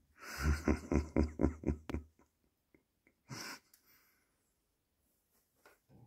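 A person's stifled, breathy laughter close to the microphone: a quick run of about eight puffs of breath over two seconds, then one short breath burst about three seconds in.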